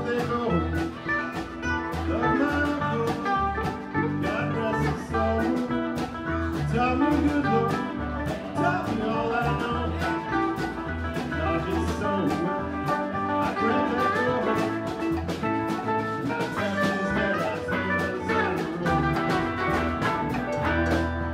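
Live band playing, with sustained notes over bass and an evenly spaced drum beat.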